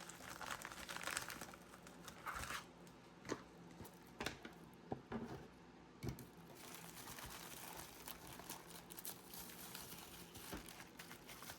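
Faint crinkling and rustling of packaging as a shipping box of beads is opened and unpacked, with a few light clicks and taps scattered through.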